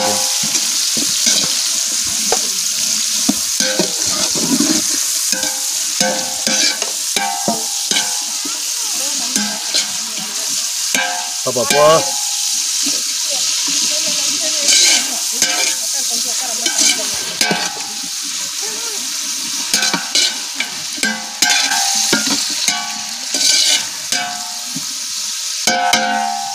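Sliced onions and green chillies sizzling steadily in hot oil in a large aluminium pot, with a metal ladle clinking and scraping against the pot as they are stirred: onions being sautéed toward golden brown as the base for chicken biryani.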